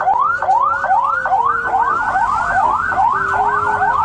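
Police car siren on a fast yelp: a loud tone sweeping up and dropping back about three times a second, over and over.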